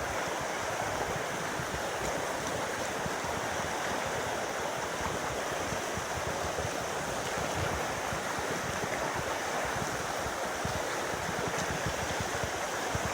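Mountain stream flowing: a steady, unbroken rush of water.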